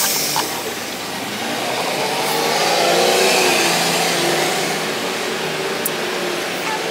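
A motor vehicle driving past, its engine note and tyre noise swelling to a peak about three seconds in and then fading as it goes by.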